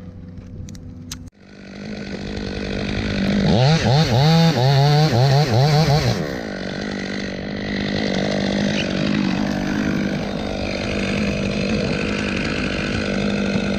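Two-stroke chainsaw running: about three and a half seconds in it revs up and down over and over for a couple of seconds, then runs steadily at high speed.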